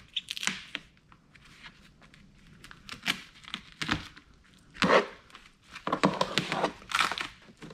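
Utility knife slicing through packing tape and plastic wrapping on a wooden board, with irregular crinkling and tearing rustles and a few sharper cuts.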